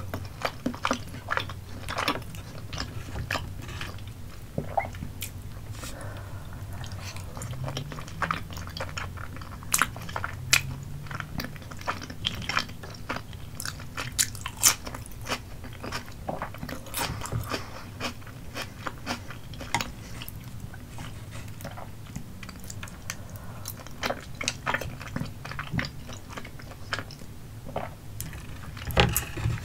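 Close-miked chewing of chewy Korean rice cakes (tteokbokki) in spicy sauce with green onions: wet, sticky mouth clicks and smacks, with bites of crunch among them, many times over.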